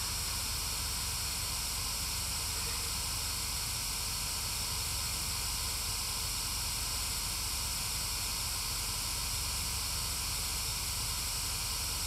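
Steady, unbroken static hiss from a GhostTube spirit box app's white-noise stream.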